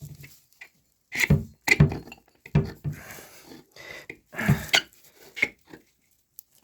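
Heavy knocks and scraping of metal parts as the e-bike hub motor's shaft is worked out of its housing against the pull of the magnets: about six hard clunks, with a scrape in the middle.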